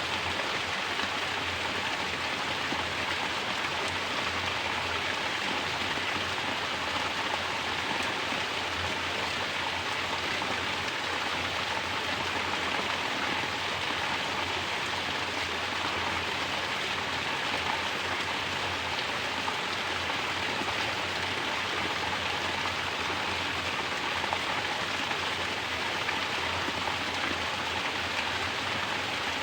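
Mountain water pouring down as a natural shower, splashing steadily onto the surface below in an even, unbroken rush.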